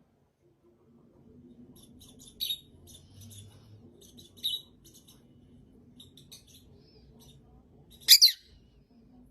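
A parrot making short, high chirps and clicks, scattered and uneven, with two louder chirps. Near the end it gives two loud calls in quick succession.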